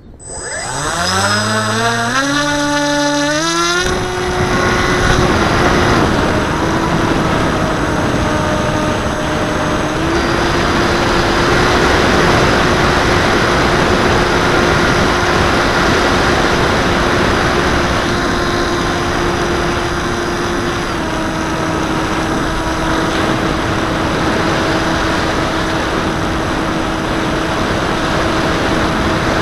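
The Bixler 2's Turnigy D2826 1400kv brushless motor and 8x5 propeller spin up for the hand launch, the pitch rising in steps over the first four seconds. The motor then runs steadily in flight, with slight pitch shifts at throttle changes about ten and twenty seconds in, over loud rushing air noise on the plane-mounted camera.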